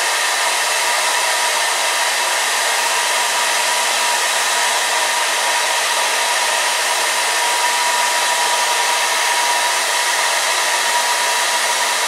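Hair dryer running steadily on high, blowing hot air up into a plastic garment bag to fill it as a hot air balloon: a constant rush of air with a steady whine over it.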